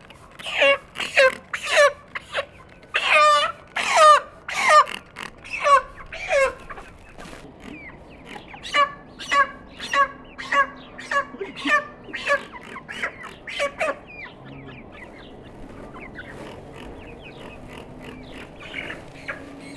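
Chickens squawking in quick, repeated calls, loud over the first six or seven seconds, then softer, evenly spaced clucks that thin out about fourteen seconds in.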